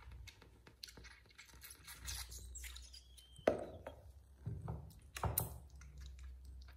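Month-old kitten being bottle-fed: small suckling and handling clicks, with a couple of short, squeaky mews about halfway through.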